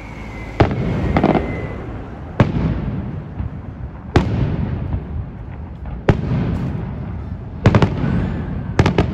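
Aerial fireworks shells bursting overhead: loud sharp bangs every second and a half to two seconds, each echoing, with quick clusters of several bangs near the end. A falling whistle from a rising shell runs through the first couple of seconds.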